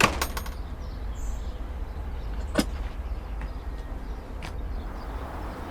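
Low steady rumble with a sharp knock at the start, a few quick ticks after it, another knock about two and a half seconds in and a fainter one near the end.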